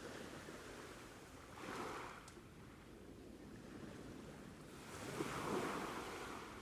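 Sea waves washing onto a beach: a steady surf with two louder waves breaking, one about two seconds in and one near the end.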